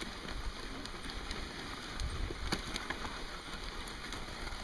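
Dog sled gliding along a packed snow trail: a steady hiss of the runners sliding over snow, with scattered small clicks and crunches.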